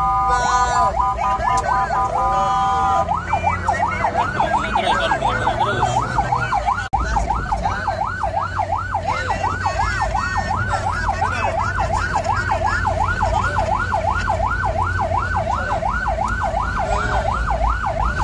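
Electronic emergency-vehicle siren. It holds a steady tone for about three seconds, then switches to a fast yelp that rises and falls roughly three times a second. A low rumble from the car and road runs underneath.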